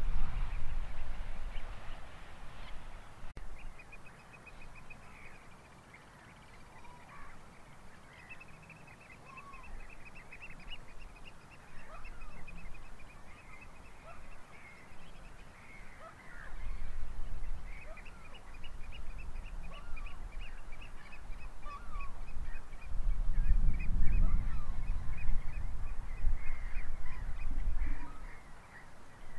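Birds calling outdoors, many short, high calls repeated in quick series, with gusts of wind buffeting the microphone in loud low surges, strongest about halfway through and near the end.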